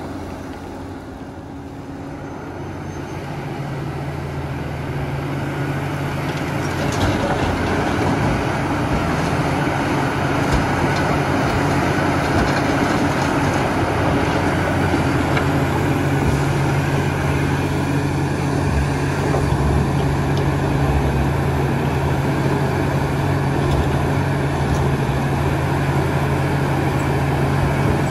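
Large hydraulic excavator's diesel engine running under load while it digs and loads soil, a steady drone that grows louder over the first several seconds and then holds.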